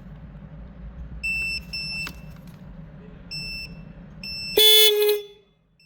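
Four short high-pitched electronic beeps over a low steady hum, then about four and a half seconds in a Hyundai Kona's car horn sounds in one loud blast of about half a second, showing that the horn itself works.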